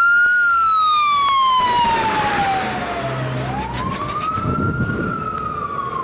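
Fire engine siren wailing: the pitch peaks just after the start, slides slowly down for about three seconds, then rises again and starts falling near the end.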